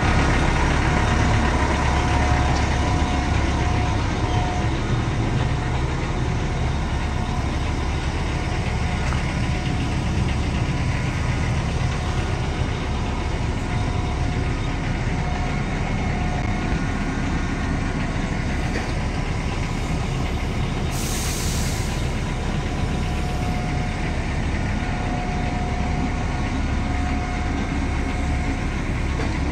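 Diesel engine of a HOWO vacuum tank truck idling steadily with a low rumble. A short hiss breaks in about two-thirds of the way through.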